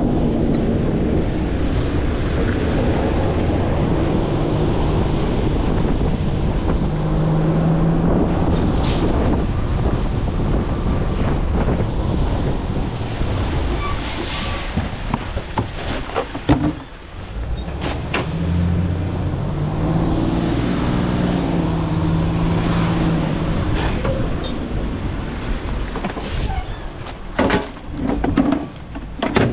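Garbage truck engine running steadily and revving up twice, with a short air hiss about halfway through and several sharp clanks and knocks near the middle and end.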